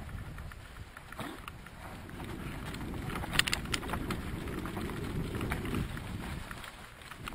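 Mountain bike ride down a dirt trail heard from the rider's camera: wind buffeting the microphone over the rumble of tyres on dirt and dry leaves, with a short rattle of clicks about three and a half seconds in.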